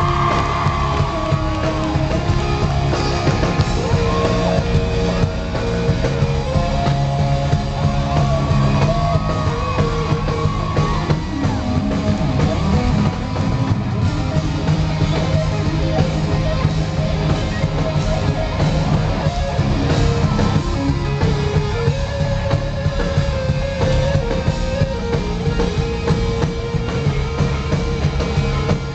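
Amplified rock band playing live, heard from within a concert hall audience, with held guitar or vocal notes over a dense bass and drum sound. Voices in the crowd yell over the music.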